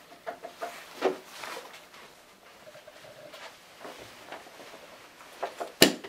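Scattered handling noises from people working on the hi-fi setup, likely swapping the speaker cables behind the loudspeaker: soft rustles and light clicks, with one sharp click near the end.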